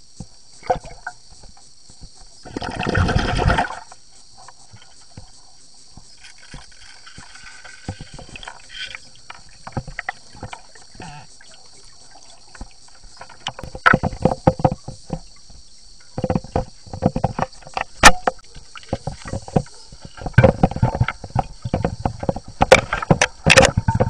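Underwater clicks and knocks as a camera is handled and bumped along a tiled pool wall, growing dense in the second half, with a one-second rush of noise about three seconds in.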